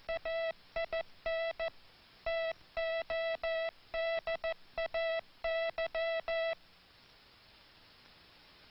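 Morse code keyed as a single steady buzzy tone, short dits and longer dahs in quick groups, stopping about two-thirds of the way through. The letter and word spacing is off, so the phrase reads as the weather report 'wet rain today' instead of 'we train today'.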